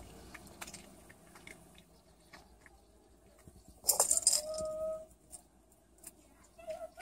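Plastic treat ball with kibble inside rattling and knocking on a tiled floor as a cat noses and paws it, in scattered small clicks. About four seconds in comes a louder rattle, followed by a brief squeak.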